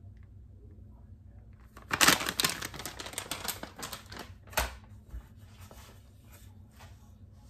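Plastic bag of chopped pecans crinkling and rustling as it is handled, with quick small clicks and crackles, starting about two seconds in and dying away after about three seconds into scattered faint clicks.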